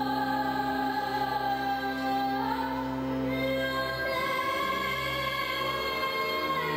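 A girl singing long held notes into a microphone, the melody moving to a new note every couple of seconds, over steady instrumental accompaniment.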